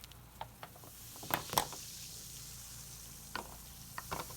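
Light clicks and taps, a few sharper than the rest, over a faint steady hiss.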